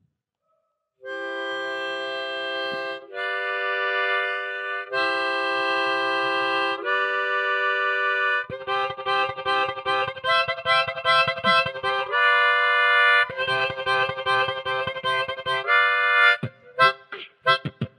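Harmonica played close into a handheld microphone, starting about a second in with long held chords that change every couple of seconds. From about eight seconds in it switches to a quicker rhythm of short, chopped chords, beatbox-style.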